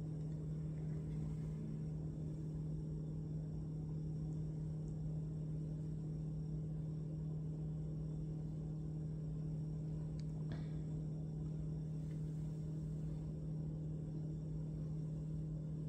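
A steady low electrical-sounding hum holding one pitch, with a faint click or two about ten seconds in.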